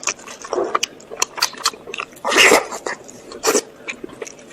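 Close-up biting and chewing: a run of short, sharp crunches and mouth clicks, the loudest about two and a half seconds in.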